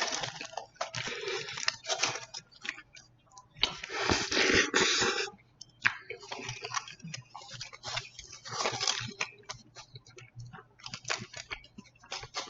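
Close-miked chewing of a Chipotle chicken burrito, in irregular bursts with many small clicks, the longest and loudest stretch about four to five seconds in.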